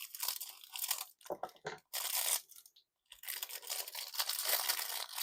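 Plastic packaging crackling and crinkling as it is handled and pulled off a silicone mould, in two long spells with a short pause a little before halfway.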